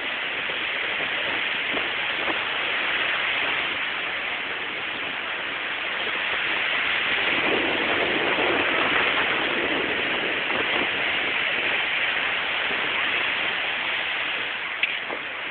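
Steady rushing of surf on a beach, swelling for a few seconds about halfway through, with a single short click near the end.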